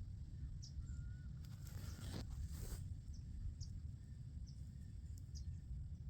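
Outdoor woodland ambience: a steady low rumble of breeze on the microphone, with a few faint, short bird chirps and a soft rustle about two seconds in.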